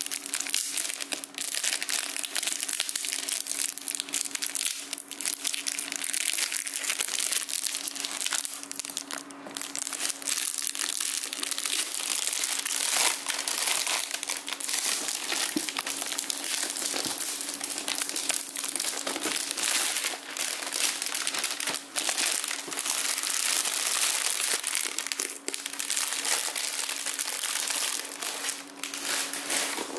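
Clear plastic shrink-wrap crinkling and crackling continuously as hands peel it off a cardboard box, with many small crackles.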